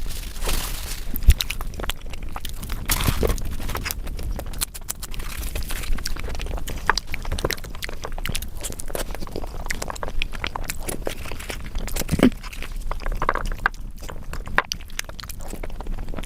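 A person eating close to the microphone: steady chewing with many small, irregular wet mouth clicks, as fried Indian bread is eaten with potato curry.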